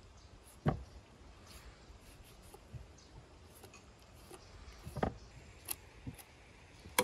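Knife cutting at a raw sheep's head on a wooden cutting board, with a few short, sharp knocks of the head and knife against the board, the loudest about a second in and right at the end.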